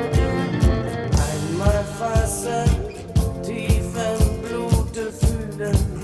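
A pop song with a steady drum beat and sustained instruments, in an instrumental passage between sung lines.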